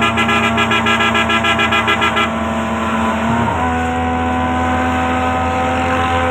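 Vehicle horn held in long, steady tones. It pulses rapidly for the first two seconds or so, then shifts to a new held pitch about three seconds in.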